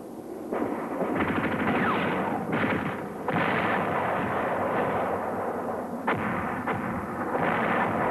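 Battlefield gunfire: a dense, continuous crackle of rapid shots, easing briefly about three and six seconds in.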